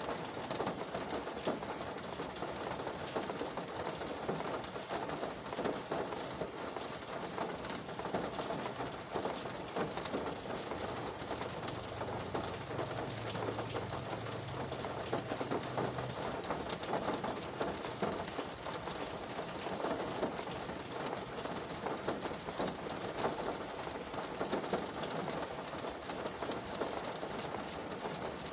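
Rain pattering steadily on a car's roof and windows, heard from inside the car as a dense stream of small drops. A faint low hum comes in for a few seconds in the middle.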